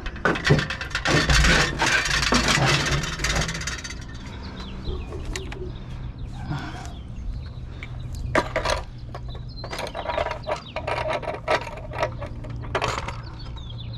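Rustling and clattering as items in a curbside trash can are handled, loud and dense for the first few seconds and then scattered knocks, over the steady low hum of a vehicle engine running.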